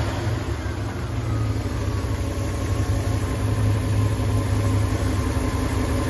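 1999 Dodge Ram 1500's 5.2-litre (318) V8 idling roughly, missing and hunting up and down in speed. The owner is chasing the rough idle as a vacuum problem.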